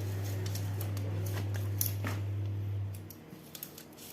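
A steady low electrical hum that cuts off about three seconds in, with scattered light clicks and taps.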